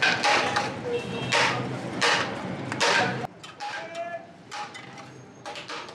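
A run of sharp knocks, roughly one every 0.7 s, that cuts off suddenly about three seconds in; quieter scattered clatter follows.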